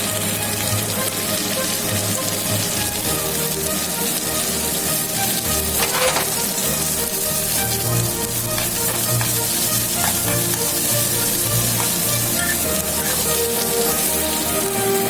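Food frying in a hot pan, a steady sizzle with some stirring.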